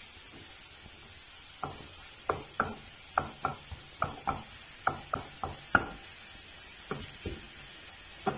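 Shredded vegetables sautéing with a faint steady sizzle in a nonstick frying pan while a silicone spatula stirs them. From about one and a half seconds in, the spatula knocks against the pan in a quick irregular run of about fifteen sharp taps, about two or three a second, which stops about seven seconds in.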